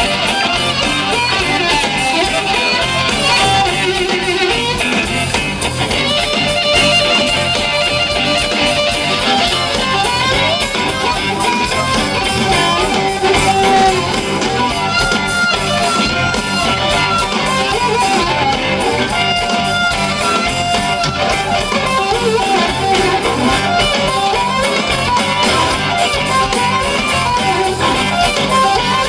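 Blues band playing live: a harmonica played into a microphone leads with held notes over electric guitar.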